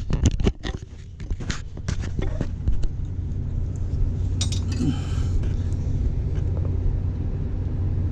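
Rapid clicks and clinks of handling for the first few seconds, then a steady low machinery hum, with a short burst of hiss about five seconds in.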